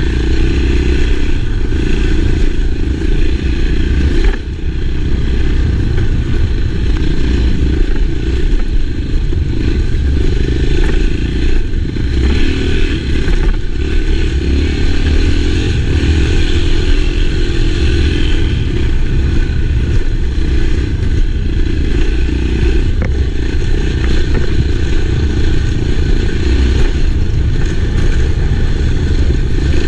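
Enduro motorcycle engine running steadily while being ridden, with a brief dip in loudness about four seconds in.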